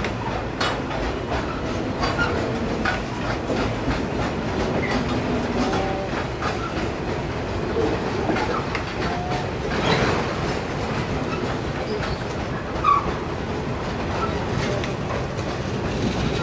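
Coal train's hopper wagons rolling steadily past: a continuous rumble with the repeated clack of wheels over rail joints.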